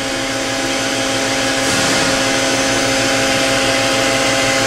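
Okuma & Howa Millac 630H CNC horizontal machining center running, a steady mechanical hum with several constant tones under a hiss, which gets a little louder a little under two seconds in.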